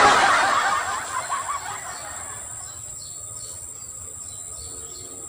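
Crickets and other insects trilling steadily in a high, thin band. At the very start, a louder rustling burst fades away over about two seconds.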